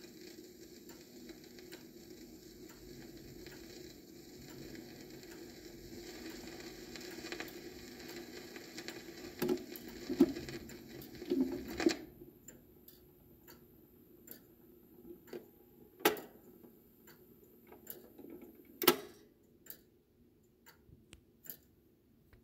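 Vinyl LP running out at the end of the side: faint surface hiss and low hum, a few knocks as the stylus crosses into the lead-out groove, then the hiss cuts off suddenly about twelve seconds in and the stylus ticks in the run-out groove, with a couple of louder pops.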